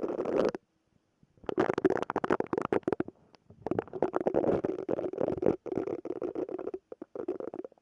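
Silicone brush stroked close to the microphone, making a dense crackly scratching full of fine ticks. It comes in three long strokes separated by short pauses, one of about a second, one of half a second and one very brief.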